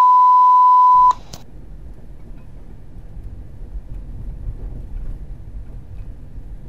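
A loud, steady one-kilohertz bleep tone, edited in to cover a word, cuts off about a second in. After it comes the low steady road and engine rumble of a car driving slowly, heard from inside the cabin.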